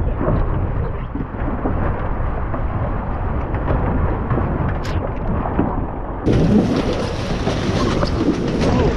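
Strong wind buffeting a body-mounted action camera's microphone, mixed with water rushing and splashing around a small sailboat in rough waves. About six seconds in, the noise turns abruptly brighter and fuller.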